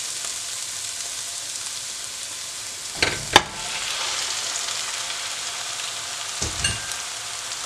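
Chopped onion and garlic sizzling in hot oil in a frying pan. About three seconds in, raw ground beef is tipped in from a bowl with two sharp knocks, and the sizzling goes on a little louder. There is another brief knock near the end.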